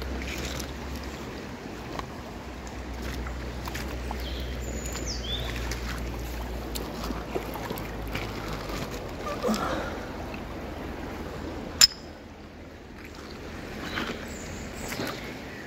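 River water running and sloshing in the shallows, with small scattered knocks. A couple of brief falling bird chirps come about five seconds in, and one sharp click, the loudest sound, about three-quarters of the way through.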